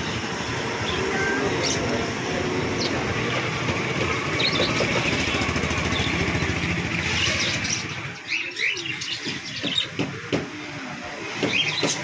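A flock of caged budgerigars chirping and chattering in short, scattered calls. Under them, a loud low rumble runs for the first eight seconds or so, then falls away, leaving the chirps and a few clicks clearer.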